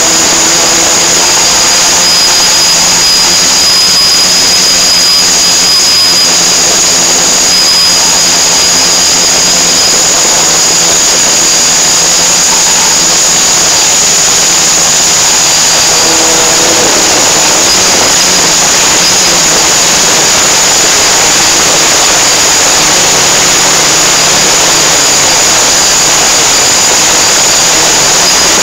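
Small electric motors and propellers running steadily close to the microphone: a loud rush of air under a high, steady whine, with lower hum lines that shift in pitch now and then.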